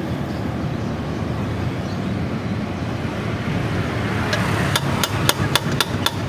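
Steady low background noise, then from about four seconds in, quick metal-on-metal knocks with a ringing edge, about three a second: a steel pipe striking a rod welded into a scooter's final-drive bearing to work the bearing out of the case.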